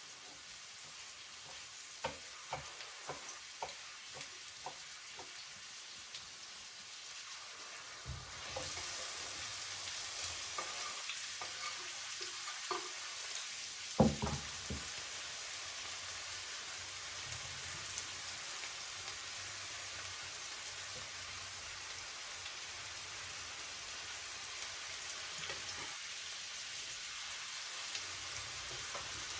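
Food frying with a steady sizzle while a utensil stirs and taps in the pan. The sizzle grows louder about eight seconds in, and there is one sharp knock midway.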